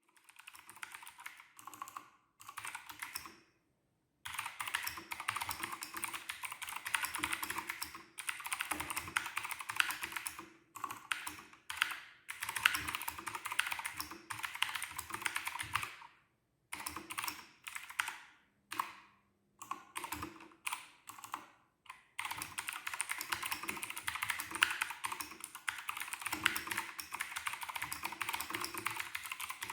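Typing on a Keychron K2 (Version 2) mechanical keyboard: fast runs of key clicks lasting several seconds, broken by short pauses and a few brief bursts of keystrokes.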